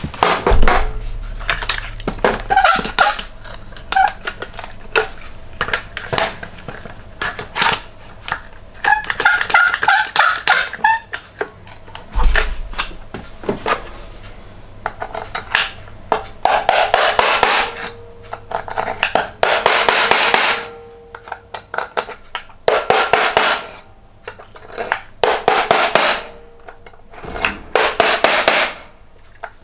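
Hand tools working a cast iron flywheel on a metal bench: bar clamps being ratcheted and set with knocks and clinks, then a hammer tapping a centre punch to mark out hole positions, in repeated spells of quick light taps that ring faintly.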